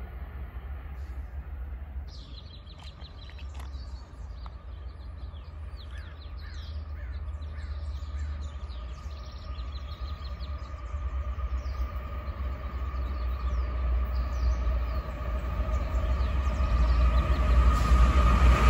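BNSF freight train with several diesel locomotives approaching, its rumble growing steadily louder, with a steady whine rising in the second half. Birds chirp over it in the first half.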